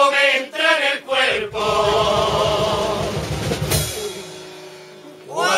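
Chirigota carnival group singing in chorus to Spanish guitars and drums. About a second in, the voices hold a final chord over drumming that rings out and fades, and near the end the choir starts a new song.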